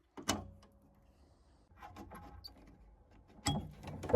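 Scattered small clicks and knocks of the boiler's spark electrode parts being handled, with a sharper knock just after the start and a louder one near the end.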